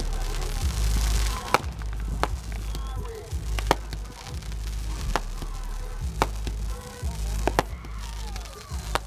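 Fireworks going off: a run of sharp bangs, about one a second and unevenly spaced, with music playing underneath.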